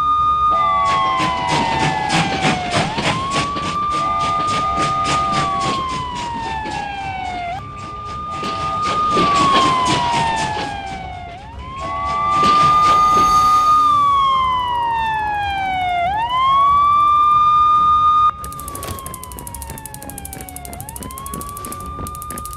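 Ambulance train siren wailing: each cycle rises quickly, holds, then slides slowly down in pitch, repeating about every four seconds. Through the first half, rapid clicking of the train's wheels over the rails runs under it, and the siren drops sharply in loudness about three quarters of the way through.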